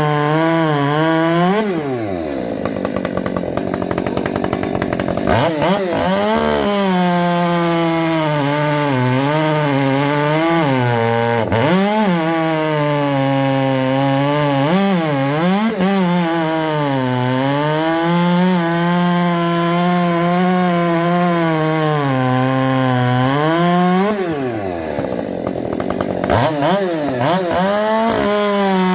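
Husqvarna 564 XP two-stroke chainsaw with a 32-inch bar and full-comp chain, cutting wood at high revs, its pitch wavering as the load comes and goes. Twice, about two seconds in and again near the end, the revs fall away sharply and then climb back up into the cut. The saw has only a muffler mod and a base gasket delete.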